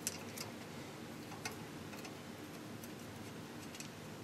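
A few light, irregular clicks and taps as small brass parts and a flux brush are handled against a model locomotive, over a faint steady room hum.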